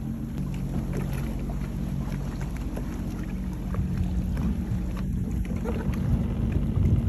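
Jet ski engine idling with a steady low hum while the craft sits still on the water.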